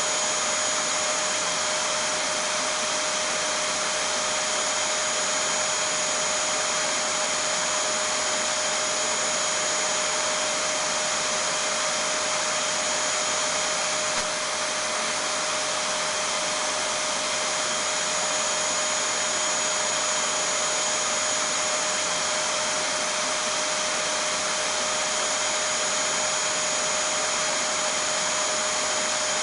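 Vacuum cleaner (hoover) running steadily: an even rushing of air with a steady motor whine, played as white noise to lull a baby to sleep. A tiny click and a slight dip in level come about halfway through.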